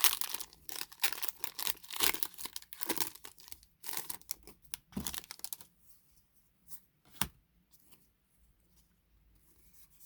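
A foil booster-pack wrapper being torn open and crinkled for several seconds, then quiet with a few light clicks as the cards are handled, one sharper click about seven seconds in.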